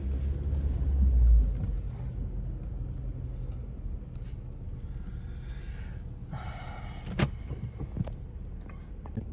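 Car engine idling, a steady low rumble, with a heavier rumble in the first second or so and a single sharp click about seven seconds in.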